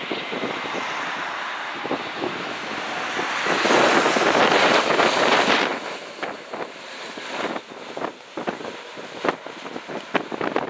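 Strong wind buffeting the microphone over the steady roar of a jet airliner. The noise swells about three and a half seconds in, then drops off abruptly into irregular gusty thumps.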